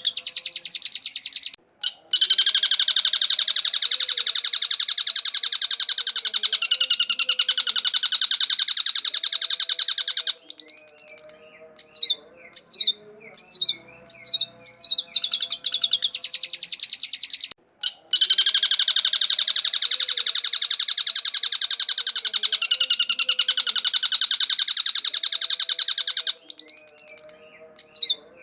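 Long-tailed shrike singing: long stretches of very rapid, dense trilling, broken by shorter runs of separate gliding notes with brief pauses between them, the pattern coming round again about every 16 seconds.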